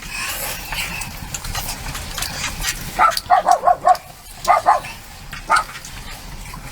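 A dog barking: a quick run of about five short barks about three seconds in, then a few more.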